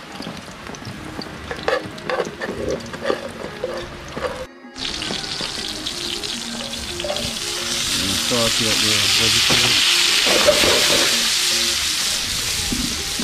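Bacon grease frying in a pan over a wood fire, with clicks of metal tongs lifting out the bacon. After a break about four and a half seconds in, chopped onion, scallion and sweet pepper go into the hot bacon fat, and from about eight seconds in the sizzle swells loud and steady.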